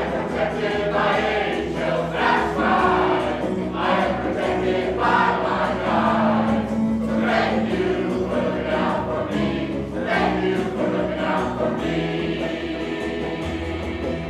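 A mixed choir of men and women singing a song together in sustained, held notes.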